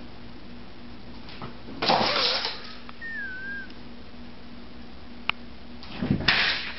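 A startled cat scrambling and thudding against a door as it leaps away, the loudest noise coming just after six seconds. A steady low hum runs underneath, with a short noise about two seconds in and a sharp click near five seconds.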